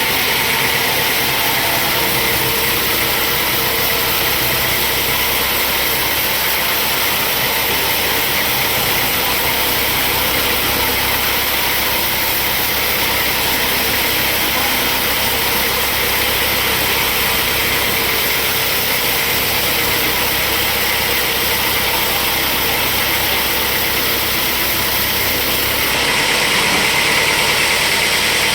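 Sawmill machinery running steadily with a loud, even mechanical noise. Near the end it turns brighter and a little louder.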